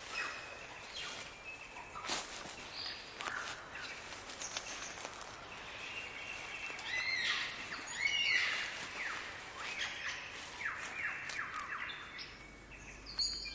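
Several birds calling at once: a dense mix of chirps, short clicks and quick falling whistles, with a run of louder sweeping calls around the middle.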